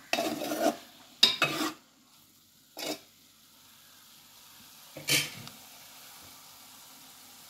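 A metal spoon scraping and knocking in an aluminium pot of boiled prawns, in a few short bursts, as they are scooped out into the pan of oil and fried onions; a faint steady sizzle of frying carries on underneath from about three seconds in.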